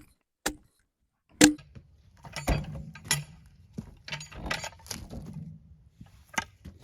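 Axe blows knocking tight bark and dirt off a small Douglas fir log: sharp single strikes about half a second apart, the loudest about a second and a half in. After it comes a run of irregular knocks and scraping over a low steady hum.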